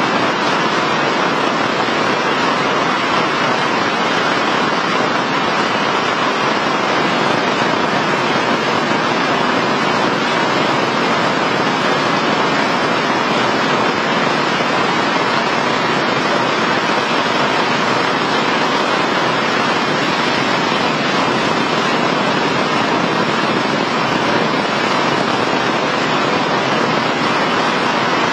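Heavy rain falling: a loud, steady, even downpour hiss.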